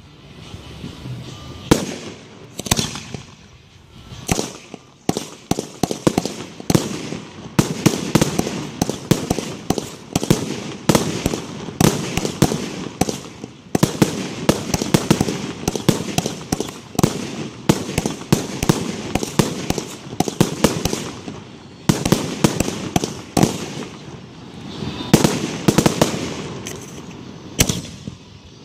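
Aerial fireworks display: shells bursting one after another in sharp bangs. A few spaced bangs come first, then from about five seconds in they follow thick and fast in an irregular barrage.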